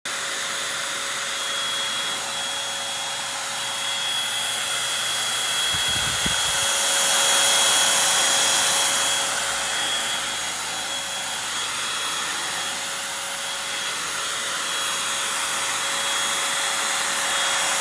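Eureka Blaze stick vacuum running steadily, a rush of air with a steady whine over it. A brief low bump comes about six seconds in.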